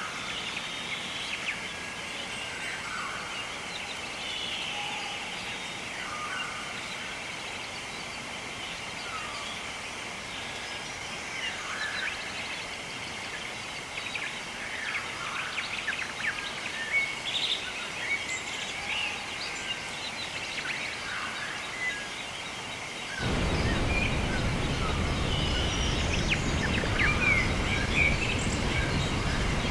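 Wild birds chirping and calling at scattered intervals over a steady high hiss. About 23 seconds in, a louder steady rushing noise cuts in abruptly, and the birds carry on over it.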